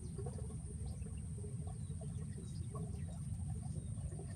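Quiet outdoor background: a steady low rumble, a constant high-pitched hum, and faint scattered ticks and chirps, with no gunshot.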